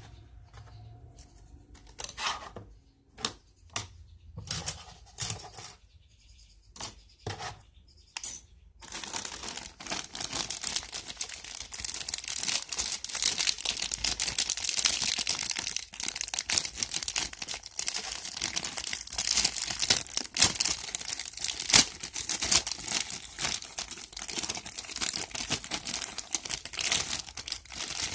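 Thin clear plastic parts bag crinkling and crackling continuously as it is handled and opened around a model kit runner. Before that, about the first nine seconds hold scattered light clicks and short rustles of plastic parts being handled.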